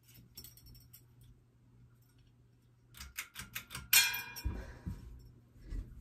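Sears ceiling fan running with a faint steady motor hum; a few light clicks near the start as the pull chain is worked to change to medium speed. About three seconds in, a quick run of taps builds to a metallic clinking with a brief glassy ring: the short pull chain rattling against the glass light globe, the fan's dreaded tapping noise.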